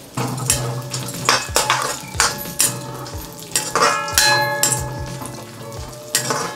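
Chopped cashews tipped into a stainless steel wok, then a steel ladle scraping and knocking against the pan as they are stirred in ghee, with a few brief rings from the metal.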